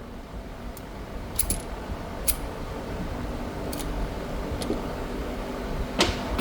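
Shooting-range background: a steady low rumble that slowly grows louder, with half a dozen sharp cracks scattered through it, the loudest near the end.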